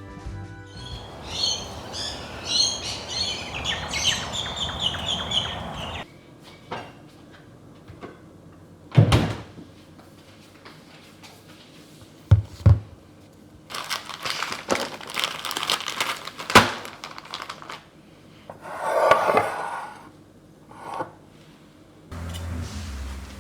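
Kitchen handling sounds in a small room: scattered knocks and thunks with small clicks, and a short rushing sound a little over three quarters of the way through. High chirps sound over a steady hiss during the first few seconds.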